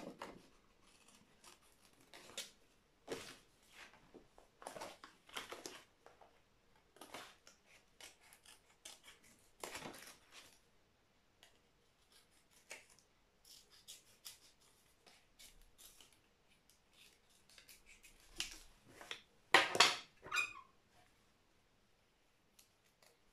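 Scissors snipping: a string of short, irregular cuts, with the loudest snips near the end.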